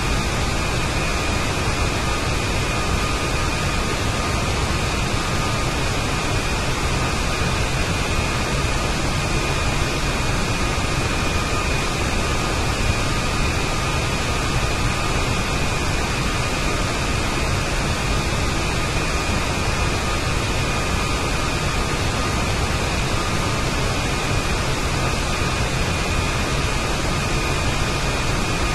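CFM LEAP turbofan engine at cruise: a steady, unchanging rush of noise with two faint, constant high whines riding on it.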